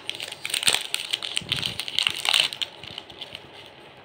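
Foil-and-paper KitKat wrapper crinkling and crackling as it is torn and peeled open by hand. The crackling fades about two and a half seconds in.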